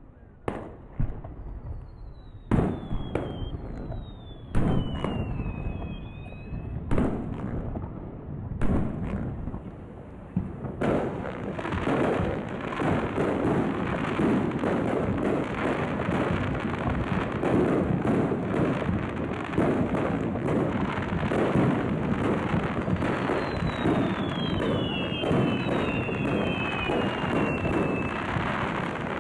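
Fireworks display: separate bangs for the first ten seconds or so, several with high whistles falling in pitch. From about eleven seconds in, a dense barrage of bangs and crackle runs on without a break, with more falling whistles near the end.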